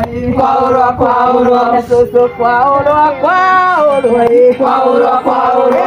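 A group of voices singing a song together, with long held notes that glide from one pitch to the next.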